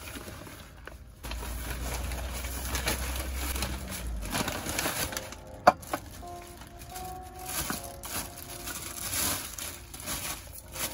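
Bubble wrap and a nylon bag crinkling and rustling as a stovetop oven is unwrapped by hand, with one sharp knock about halfway through.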